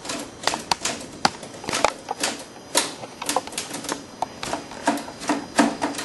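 Typewriter keys being struck one at a time, sharp clacks at an uneven pace of about three a second.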